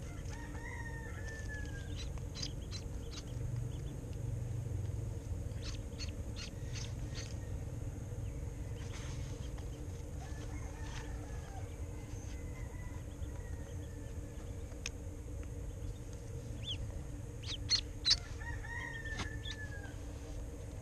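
A duckling peeping with short falling calls three times, along with small clicks from the hook and line being handled and two sharper clicks near the end. A steady low hum runs underneath.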